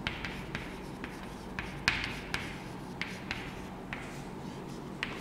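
Chalk writing on a chalkboard: a run of short, irregular taps and scratchy strokes as a word is written.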